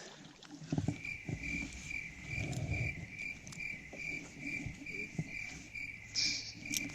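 Cricket chirping steadily at about two chirps a second, with faint low knocks and handling noise under it.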